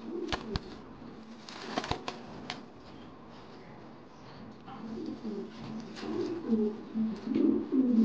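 Angry male King pigeon cooing in low, repeated coos, mostly in the second half. A few sharp knocks come in the first few seconds as the bird strikes out at a hand reaching into its cage.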